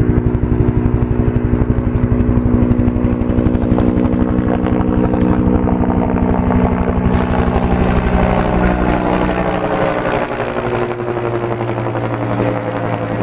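Firefighting helicopter with a water bucket slung below, flying close overhead: a loud, steady rotor beat over the engine's drone. The low thudding eases somewhat about three-quarters of the way through, and the pitch sinks slightly.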